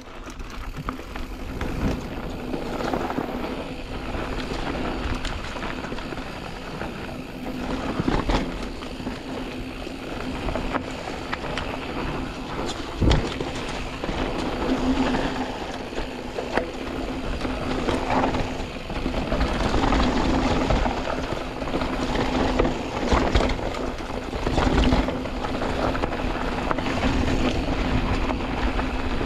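Canyon Spectral AL 6.0 mountain bike riding down a dirt trail, heard close up from the rider's chest: a continuous rumble of tyres over dirt and rocks with a steady hum, broken by frequent rattles and knocks from the bike. The hardest knock comes about halfway through.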